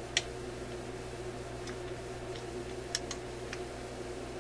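A few small, sharp clicks from fingers forcing a delicate part into a record player's tone-arm cartridge: one just after the start, another near three seconds in, then two fainter ones, over a steady low hum.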